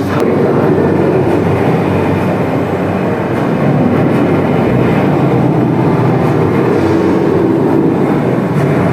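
Steady, loud storm sound effect of pouring rain and rushing wind, played through an exhibit's speakers.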